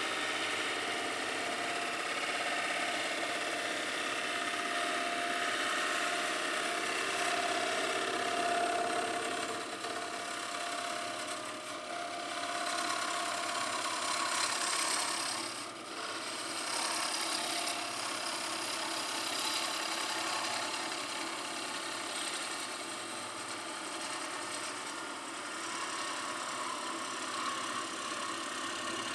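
A bowl gouge cuts inside a spinning green maple bowl on a STRATOS XL wood lathe, giving a steady hiss of shavings being peeled off over the hum of the running lathe. The cutting sound breaks off briefly about sixteen seconds in, then resumes.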